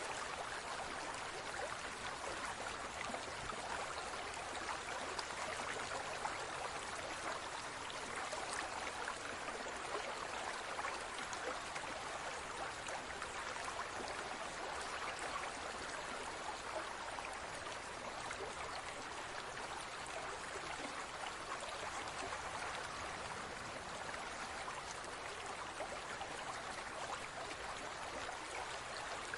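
Water in a large aquarium trickling and bubbling steadily, an even rushing hiss with fine splashy specks.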